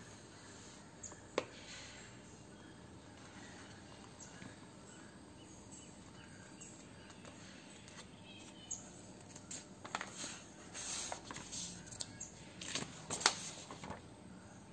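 Soft steady background noise with faint bird chirps. A single sharp click about a second and a half in, and a run of rustles and taps in the last few seconds as the paperback textbook is handled.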